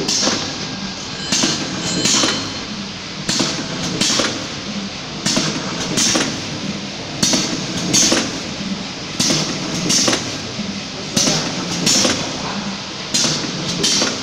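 Coretamp ZV-320L liquid packing machine running its cycle: a pair of sharp hissing clacks about every two seconds, from the air-driven filler and sealing strokes, over a steady running noise.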